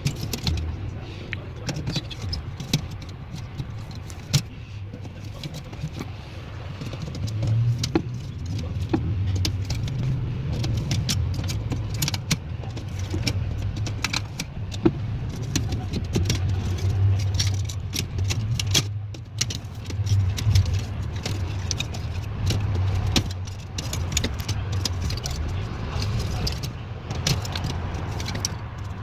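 Scattered clicks, taps and light metallic clatter of hand tools and parts being handled during replacement of a refrigerator's aluminium defrost heater, over a steady low hum.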